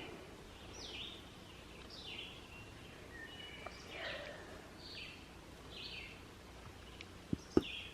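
A bird calling in the woods: a short, high note that falls in pitch, repeated about once a second over faint outdoor hiss. Two sharp knocks near the end.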